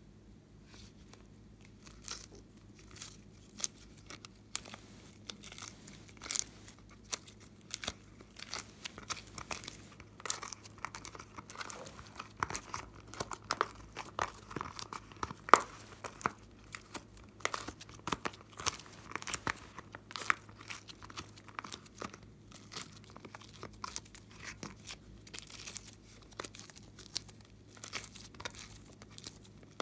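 Soft slime peeled out of a silicone mold and squeezed in the hands: irregular sticky clicks, crackles and squelches, starting about two seconds in.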